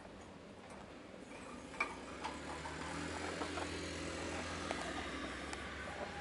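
A sugar glider chewing nuts: small, sharp crunching clicks scattered irregularly. A low rumble with a steady hum swells about a second and a half in and fades near the end.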